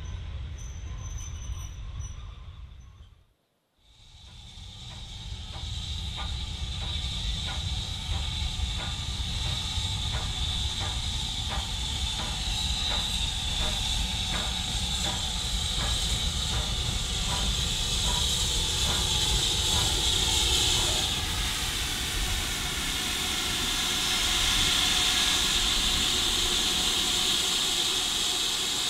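Steam locomotive standing in steam, hissing steadily over a low rumble, with a regular faint ticking; the hiss grows louder about two-thirds of the way through. Before it, for the first few seconds, is the low rumble of a diesel train, cut off by a brief silence.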